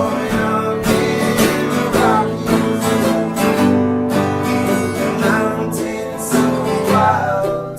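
Acoustic guitar strummed and picked in a steady rhythm, playing a folk song.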